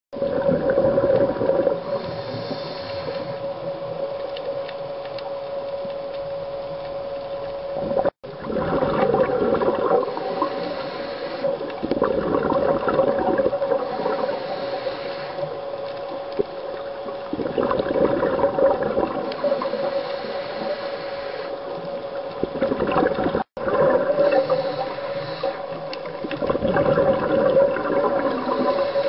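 Underwater sound of a scuba diver breathing through a regulator: exhaled bubbles gurgle and rush in swells every few seconds, heard through the camera housing over a steady hum. The sound cuts out briefly twice.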